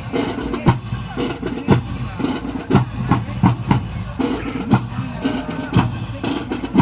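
Music with a steady drum beat, about two beats a second, over the chatter of a crowd.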